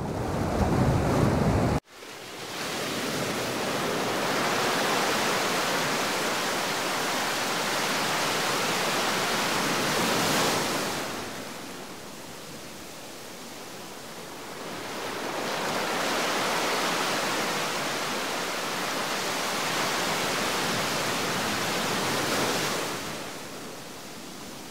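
Sea waves washing on a rocky shore: a rushing noise that swells for several seconds, falls back, and swells again. A short burst of low wind rumble cuts off abruptly about two seconds in, just before the surf starts.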